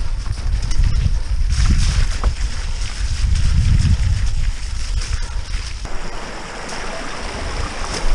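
Wind buffeting the microphone of a camera on an e-bike riding over a rough grass track, with a heavy rumble and scattered knocks and rattles from the bike. About six seconds in the rumble eases and a steadier hiss takes over.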